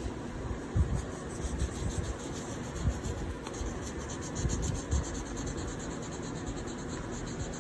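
Colouring on paper with quick back-and-forth strokes, a rapid scratchy rubbing of about five strokes a second, with a few soft bumps on the table.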